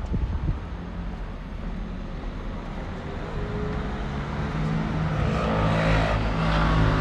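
A vehicle's low rumble and hum, growing steadily louder over the last few seconds.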